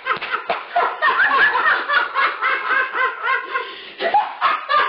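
People laughing hard, several voices overlapping in bursts, with a brief lull near the end before the laughter picks up again.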